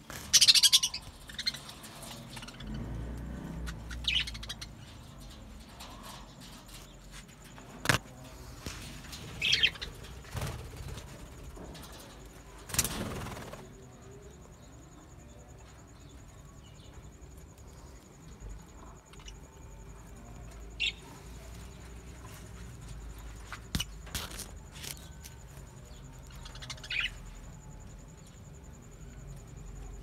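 A flock of budgerigars giving short, scattered chirps every few seconds, with a few sharp clicks and a brief rustle about halfway through.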